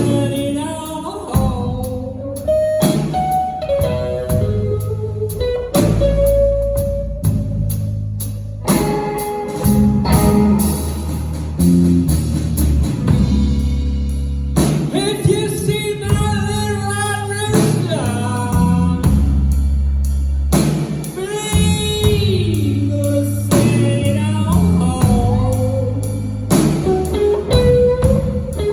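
Blues band playing live: electric guitar with bent notes over bass guitar and drum kit.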